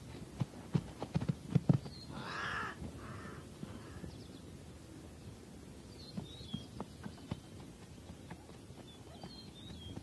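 Plains zebra hooves thudding on dry ground: a run of thumps in the first two seconds and a few more later. A zebra's barking call comes about two seconds in, followed by two shorter barks.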